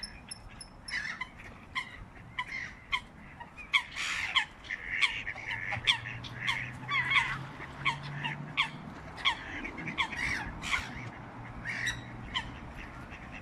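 A flock of black-headed gulls calling over and over with short, harsh, falling cries, crowding around a bird feeding. The calls come thickest in the middle, with a faint low hum beneath them.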